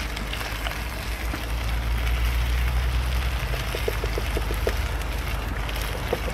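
Small wood fire crackling under a cast-iron Dutch oven, over a steady low rumble, with a run of short soft plops in the middle as tomato passata is poured from a carton into the browned mince and stirred with a wooden spoon.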